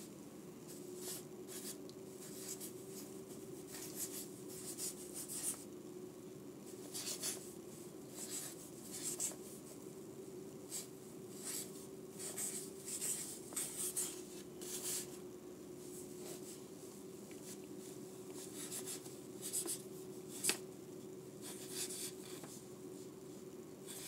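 Faint, irregular scratching and rustling of paper being handled and marked, over a steady low hum.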